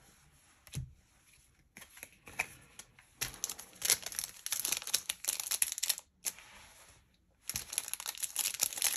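Plastic wrapper of a Magic: The Gathering booster pack crinkling and tearing as it is ripped open and handled. After a quiet start with a few light clicks, it runs as dense crackling, with a brief pause after the middle.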